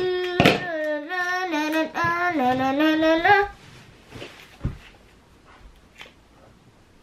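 A girl singing a short tune of held notes that step up and down for about three and a half seconds, then faint handling sounds with a soft knock.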